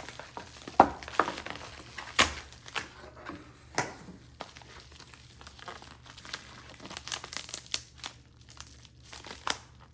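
Packing material from a shipping box being handled: irregular crinkling and rustling with sharp crackles, the loudest about a second and two seconds in.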